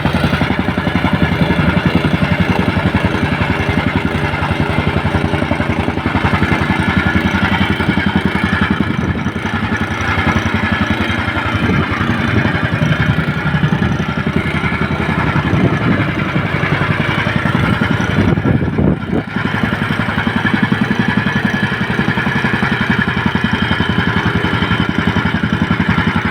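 A small engine running steadily, with a brief dip in level about two-thirds of the way through.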